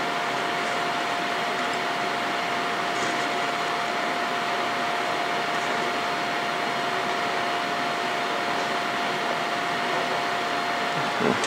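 Steady rushing air noise of laboratory ventilation with a faint constant hum, and a few faint small clicks from handling at the balance.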